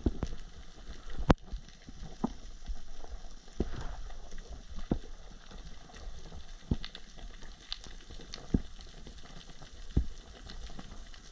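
Underwater ambience as heard by a camera in its waterproof housing: a steady crackling hiss with sharp clicks every second or two, the loudest about a second in.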